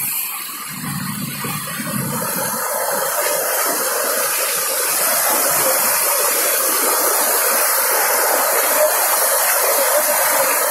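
Heavy rain and rushing floodwater, a steady hiss that grows louder over the first few seconds and then holds, with a low rumble about a second in.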